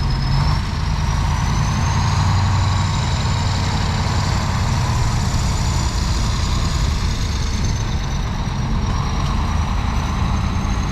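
Heavy diesel road-works machinery running steadily, with a thin high whine that rises in pitch about two seconds in and sinks again near the eight-second mark.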